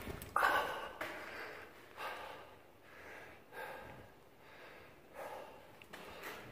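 A hiker breathing hard while walking, about five or six heavy breaths a second or so apart.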